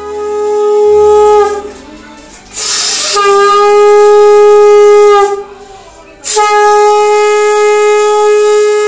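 Conch shell (shankha) blown in three long, steady, loud blasts on one held note, the last running on past the end, with a rushing breath before the second blast. This is the conch sounded to close a Hindu puja.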